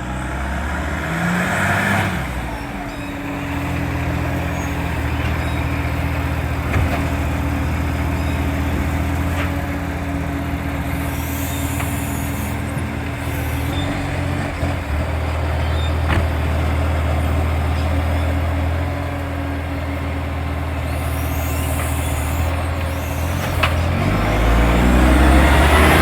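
Garbage truck's diesel engine running with a loud exhaust leak, a few sharp clicks and two hisses of air along the way; near the end the engine revs up and grows louder.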